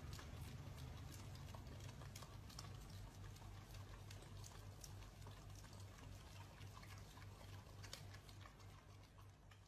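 Faint wet licking and lapping of two husky dogs at an ice cream cone, small irregular tongue clicks over a low hum.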